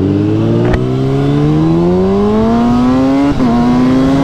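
Car engine accelerating hard, its pitch rising steadily, then a brief break and slight drop about three seconds in, as at a gear change, before it carries on. A sharp click a little under a second in.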